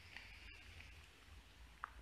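Near silence: faint outdoor hiss and low rumble, with a few faint short ticks and one slightly sharper tick near the end.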